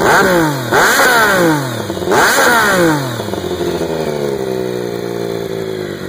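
Triumph Daytona 955i's three-cylinder engine, breathing through a D&D aftermarket exhaust, blipped three times, the revs falling away after each blip. It then settles back down toward idle.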